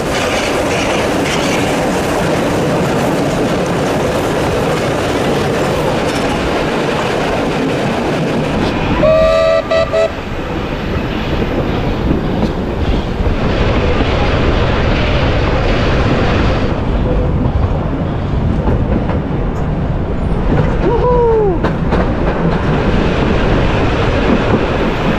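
Heritage train running steadily, heard from an open carriage window: a continuous rumble of wheels on the track with clickety-clack. The steam locomotive's whistle gives one short blast about nine seconds in.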